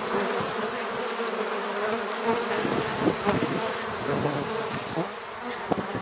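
Many honey bees buzzing steadily as they crowd a feeder to take sugar syrup.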